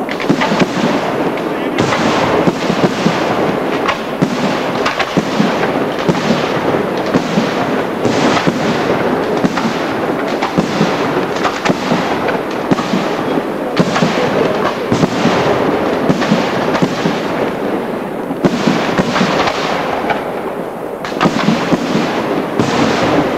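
Aerial firework shells bursting in a dense, continuous barrage, with rapid bangs and crackling packed close together. The barrage eases briefly about three quarters of the way through, then picks up again near the end.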